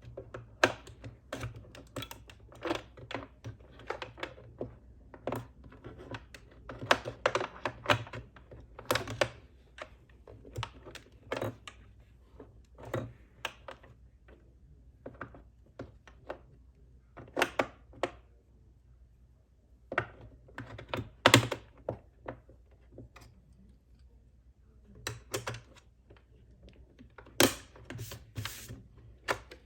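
Keys of a YUNZII retro-style keyboard being pressed: irregular runs of sharp clicks and clacks with short pauses between them.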